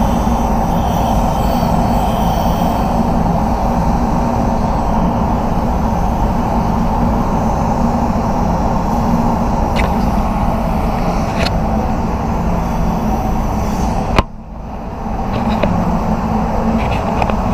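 Sagola 4600 HVLP spray gun running on compressed air as black base coat is sprayed, a steady loud hiss over a low rumble. The hiss cuts out suddenly about fourteen seconds in and builds back over the next second or two.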